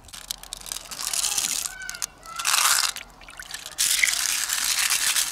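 Water sloshing and splashing as an opened freshwater pearl mussel shell is rinsed by hand in shallow pond water, coming in bursts, the loudest about halfway through and from about four seconds on.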